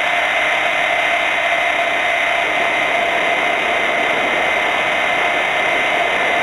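Hurricane 550 electric RC helicopter heard from its own onboard camera: a steady whine from the motor and gears with the rush of the rotor blades, two fixed tones held over a loud hiss.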